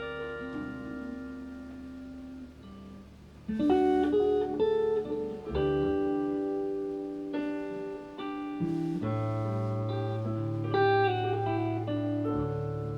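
A live band playing a song's instrumental opening, led by guitar with sustained chords. The sound grows fuller and louder a few seconds in, and a low bass line comes in past the middle.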